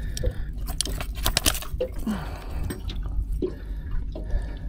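Wet handling of a freshly caught barramundi being unhooked with pliers: irregular clicks, knocks and wet slaps of the fish, lure and pliers against each other and the deck, over a low steady rumble.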